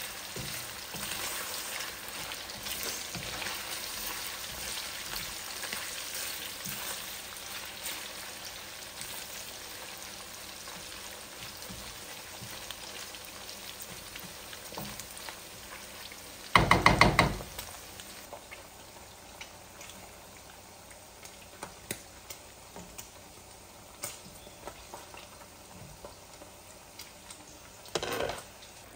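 Meat pieces frying in oil in a wok with a steady sizzle, stirred with a wooden spatula; the sizzle gradually dies down. About two-thirds through comes a brief, loud clatter.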